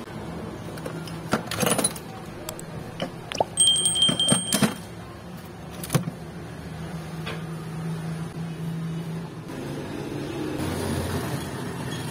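Old metal motorcycle engine parts clanking and knocking together as a hand rummages through a bin of them, with a brief high metallic ring about three and a half seconds in, over a steady low hum.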